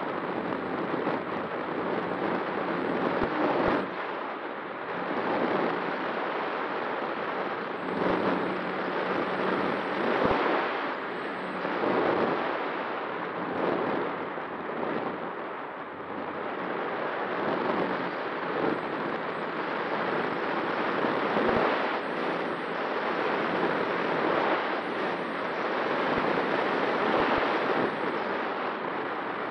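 Airflow rushing past the onboard camera of a flying-wing FPV model plane in flight, swelling and easing in gusts every second or two, with the faint steady hum of its pusher motor and propeller underneath.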